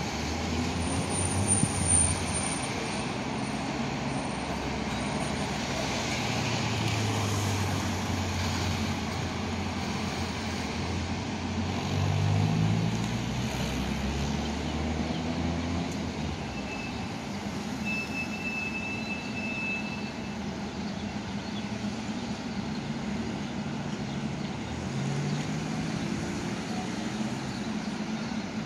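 Bus engines and road traffic running steadily around a bus terminal, with engine notes rising as vehicles pull away about twelve seconds in and again near the end.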